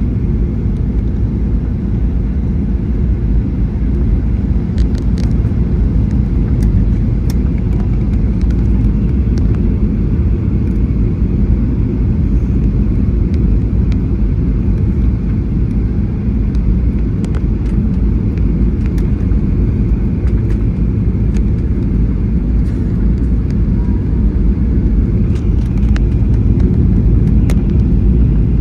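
Airliner cabin noise during descent: a steady low rumble of engines and airflow, with a few faint clicks and rattles scattered through it.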